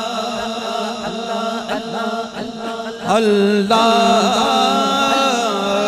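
Devotional zikr chanting of 'Allah' in long, wavering, drawn-out notes. A louder voice comes in about three seconds in.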